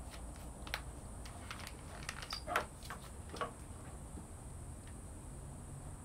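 Light clicks and taps of tools and metal parts being handled on a workbench, with one louder knock about two and a half seconds in, over a steady low hum; the clicking stops after about three and a half seconds.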